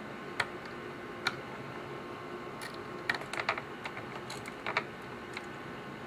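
Light, irregular clicks and taps of a small screwdriver against the screws and metal frame while the internal drive assembly of an early-2009 Mac mini is unscrewed: two single clicks, then a quick cluster about three seconds in and a few more near the end.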